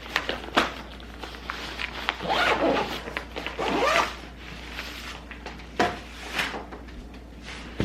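A lunchbox zipper being pulled shut in a few long swishing strokes, strongest about two and four seconds in, with light knocks and clicks from the box being handled.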